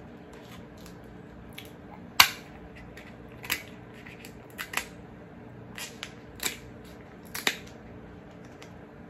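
Kitchen scissors snipping and cracking through cooked king crab leg shell: a run of about eight sharp snips and cracks, the loudest about two seconds in.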